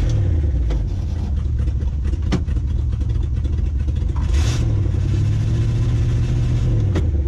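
Old pickup truck's engine running at idle, then speeding up about four seconds in and holding the higher speed steadily for a couple of seconds before dropping back near the end. A few sharp clicks sound over it.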